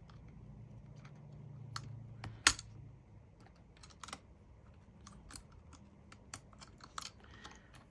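Small scattered plastic clicks and taps of a plastic spudger prying against the aluminium case and internal bracket of an opened MacBook Air, with one sharper, louder click about two and a half seconds in. A faint low hum fades out about three seconds in.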